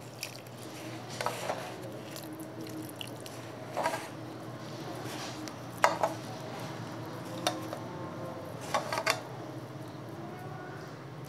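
Fingers working water into shoti flour in a steel bowl: soft wet squishing of the starch paste, with a few light clicks and knocks against the bowl spread through it.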